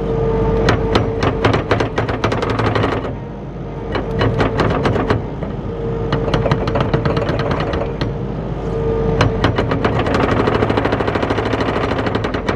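Kubota SVL75 compact track loader's diesel engine running, with rapid runs of metallic clanking and rattling from the track and undercarriage as the track is rocked back and forth to seat it on the sprocket. The clatter comes in bursts with short lulls, around three seconds and eight seconds in.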